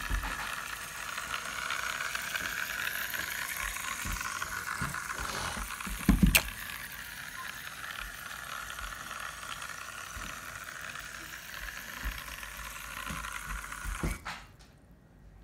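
Zuru Micro Boat toy's tiny battery motor buzzing with a steady rattle as it drives its propeller through the water. There is one sharp knock about six seconds in, and the sound drops away near the end.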